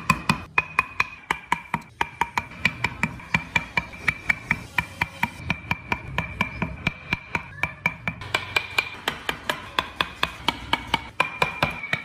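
A steel chisel being tapped into wood to cut out a carved grille, a quick, even run of sharp taps at about four a second.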